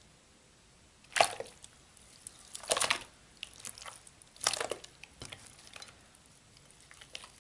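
Watered-down clear-glue and borax slime squelching and slopping as it is dropped into a bowl and squeezed by hand: three louder wet squishes, with softer ones between and after them.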